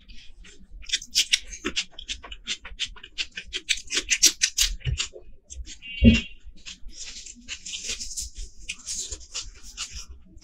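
Close-up eating sounds: rapid wet chewing and lip-smacking clicks, a single knock about six seconds in, then fingers mixing rice with curry on a plate, a soft squishing hiss with small clicks.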